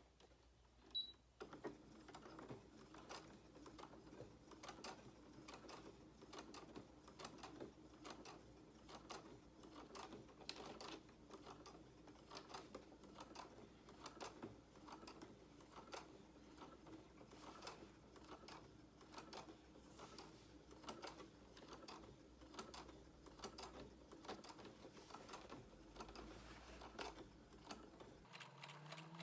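Sewing machine stitching canvas: a steady run of quick needle clicks over the motor's hum, starting about a second in and stopping shortly before the end.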